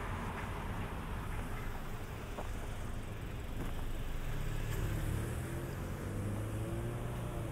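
Steady street rumble with a car passing. Its engine note swells from about four seconds in, and the pitch rises then falls as it goes by.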